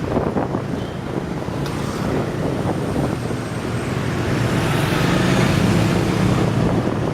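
Wind buffeting the microphone over engine and traffic noise while riding on a motorcycle taxi, the rumble growing louder in the second half.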